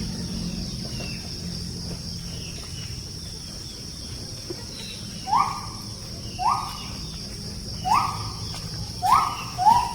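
Gibbons singing: from about five seconds in, five loud rising whooping notes, the last two close together. A steady high insect drone runs underneath.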